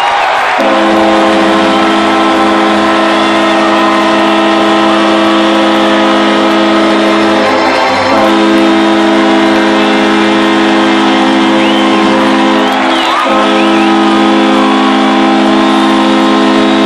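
Hockey arena horn sounding a steady multi-tone chord in three long blasts, breaking briefly twice, over a cheering crowd: the horn marking a home-team win at the end of the game.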